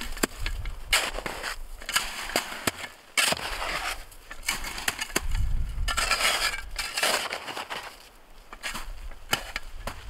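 Irregular crunching and snapping with many sharp knocks and clicks, and patches of low rumble.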